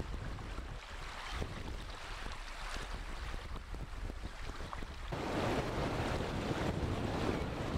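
Wind buffeting the microphone with a low rumble, over the wash of shallow water lapping on a sandy shore. About five seconds in the sound grows louder and fuller.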